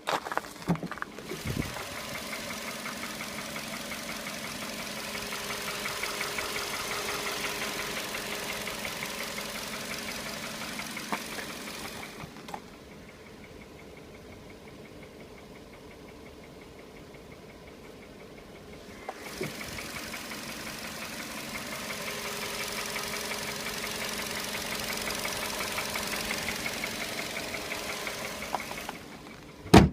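Volkswagen Polo Sedan engine running with a fast, regular knock: the knocking noise that the owner is recording. It drops much quieter for several seconds in the middle, then comes back, and a sharp click sounds near the end.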